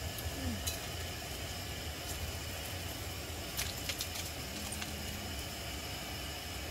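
A steady low hum, with a few faint clicks and taps about three and a half to four seconds in.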